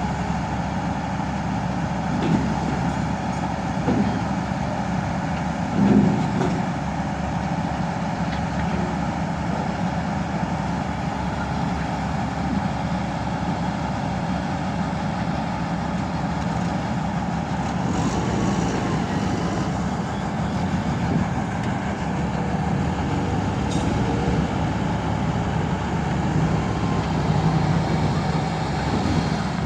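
Excavator's diesel engine running steadily, with a few short knocks in the first several seconds.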